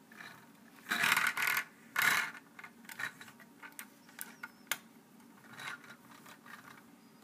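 Handling noise as a small plastic Lego truck is moved about on a wooden tabletop: two brief rubbing scrapes about a second and two seconds in, then scattered light clicks and rubs.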